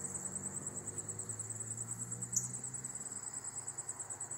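Insects chirping: a steady, high-pitched call pulsing rapidly and evenly, with a faint low hum underneath and one short falling chirp about two seconds in.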